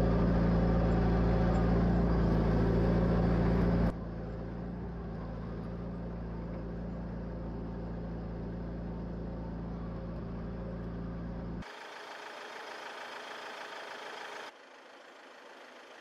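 Engine of a tracked mine-clearing vehicle running at a steady pitch, loud at first and then abruptly quieter about four seconds in. A few seconds before the end the engine hum cuts out, leaving fainter noise that drops again shortly after.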